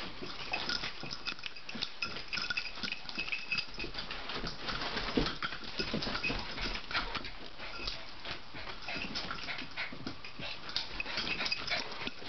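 Two dogs play-wrestling: dog vocal sounds mixed with many short scuffs and clicks of paws and bodies on carpet.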